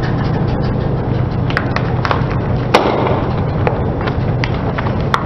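Car tyre rolling slowly onto a row of small plastic toy cars over a steady low engine hum: a series of sharp plastic cracks and snaps as the toys break under the tyre, starting about one and a half seconds in, the loudest a little before the middle.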